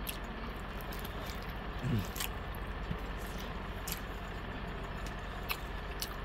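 A man biting and chewing gelatinous pig feet close to the microphone, with a few short wet clicks and smacks, over a steady background hum.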